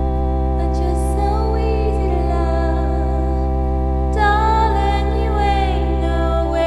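Background song: long held organ-like chords over a steady bass, with a singing voice carrying a wavering melody.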